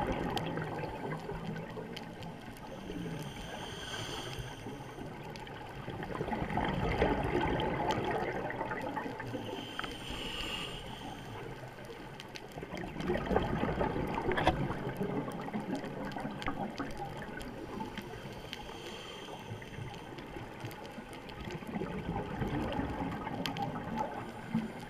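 Scuba diver breathing through a regulator underwater: a faint high hiss on each inhale, then a gurgling burst of exhaust bubbles on each exhale, repeating about every six to seven seconds.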